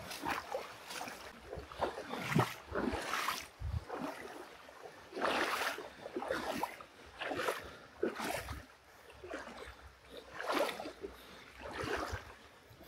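Footsteps wading through a shallow, rocky creek: water sloshing and splashing with each stride, in uneven bursts about once a second.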